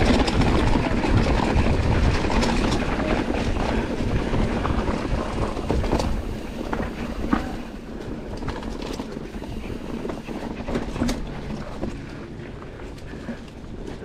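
Mountain bike rolling down a rough dirt trail: tyre rumble over the ground and the bike's parts rattling with many sharp clicks, with wind noise on the microphone. Quieter from about halfway through.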